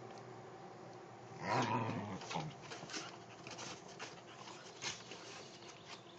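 Two dogs play-fighting: one gives a loud growl-like call about a second and a half in, lasting about a second, followed by scattered sharp clicks and scuffles as they tussle on the wooden deck.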